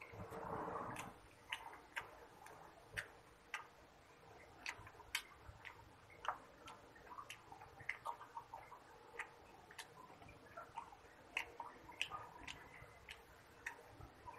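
Faint, irregular clicks and soft smacks of eating by hand: fingers working rice against a steel plate, and chewing. A short, louder sound comes right at the start.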